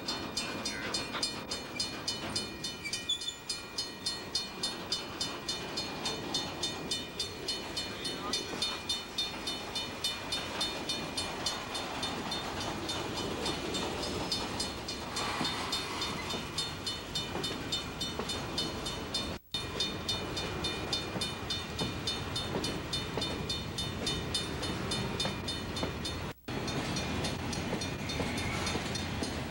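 Burlington Northern freight train rolling slowly through a grade crossing, its rumble under a crossing bell ringing steadily at about two strokes a second. The sound cuts out for an instant twice.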